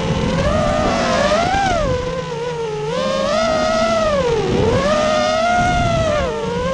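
FPV quadcopter motors whining, the pitch rising and falling over and over with the throttle as the drone flies and banks.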